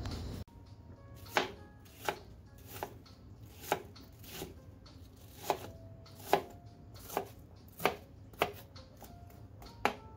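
Chef's knife chopping a red onion on a plastic cutting board: about a dozen sharp, separate knife strikes on the board, spaced under a second apart.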